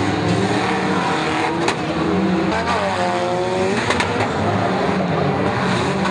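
Several banger racing cars' engines running and revving together, with one engine's note dipping and then climbing again between about two and a half and four seconds in. Sharp metal bangs of cars hitting each other come about two seconds in and again around four seconds.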